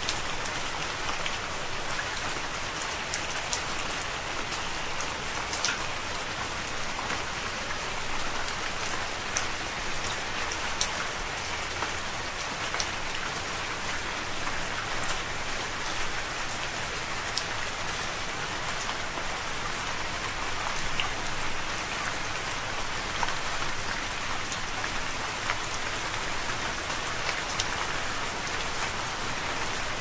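Steady rain falling: an even hiss with many scattered sharp ticks of individual drops.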